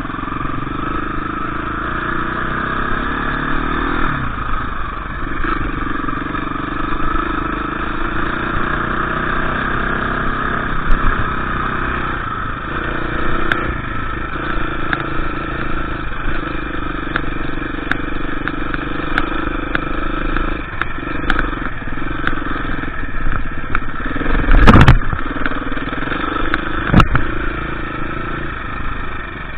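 KTM EXC 350 dirt bike engine running at a steady pitch, the note dipping briefly every few seconds as the throttle eases and picks up again. A loud knock sounds about 25 seconds in, and a smaller click follows shortly after.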